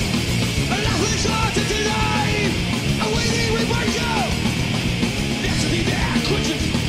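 Thrash metal played live by a full band: heavily distorted guitars over fast drums, loud and unbroken, with wailing notes that bend up and down in pitch.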